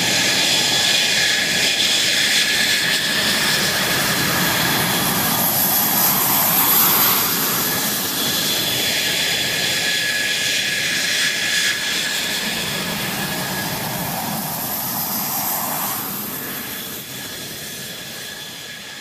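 AV-8B Harrier II jet engine noise: a steady rushing sound with high whining tones, fading gradually over the last few seconds.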